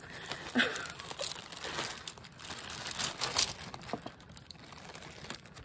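Clear plastic zip-top bag crinkling and rustling in irregular crackles as hands rummage through it.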